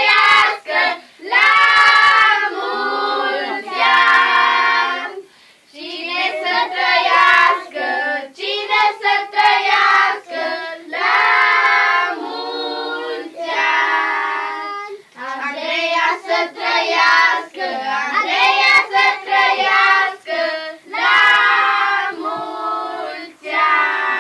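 A group of children, joined by some adults, singing a birthday song together, in sung phrases with short breaks between them.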